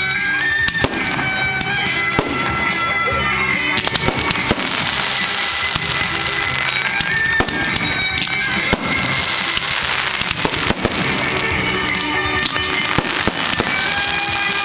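Fireworks display: many sharp bangs and crackles from bursting aerial shells and fountains, over music with long held notes playing throughout.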